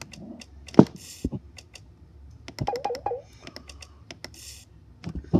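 Scattered clicks and taps of a laptop's keys or touchpad being pressed, with two short hissy rustles and a brief wavering tone about three seconds in.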